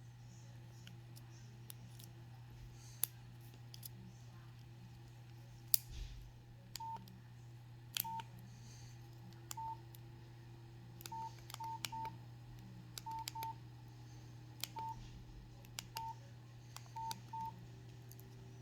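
Nokia 5610 mobile phone keypad beeps: about a dozen short, single-pitched beeps, some in quick pairs, starting about a third of the way in, as keys are pressed. A few sharp clicks come earlier, and a faint low hum runs underneath.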